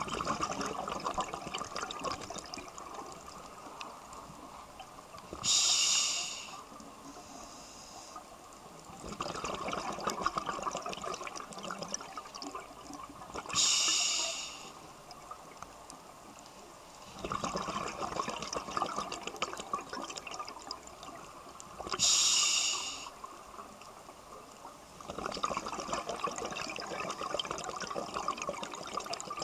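Scuba diver breathing through a regulator in a slow, even cycle about every eight seconds. Each breath is a short high hiss of the inhale, three times, followed by a longer stretch of gurgling exhaled bubbles.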